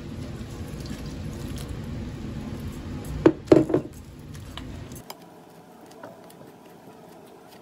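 Lukewarm water pouring from a glass measuring cup into a bowl of flour. About three seconds in there are three or four sharp knocks close together, then a silicone spatula stirs quietly through the wet flour with a few faint clicks.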